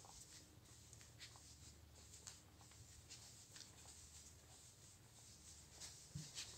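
Faint footsteps tapping and scuffing on stone paving at an irregular walking pace, a little stronger near the end, over a low steady hum.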